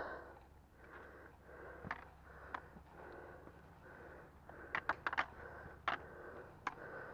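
Hiker's heavy breathing while climbing a steep rock staircase, with a series of sharp clicks as trekking-pole tips strike the granite steps, several close together about five seconds in.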